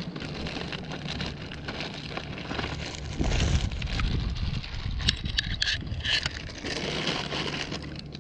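Wind buffeting the microphone with a low, uneven rumble, and a plastic bag crinkling in the wind in a short cluster of crackles about five to six seconds in.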